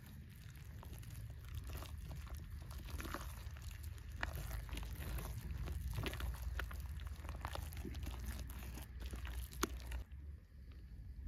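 A gloved hand squeezing and kneading a wet mixture of egg yolks and chopped herbs in a stainless steel bowl: irregular squelching and crackling that stops near the end, over a steady low rumble.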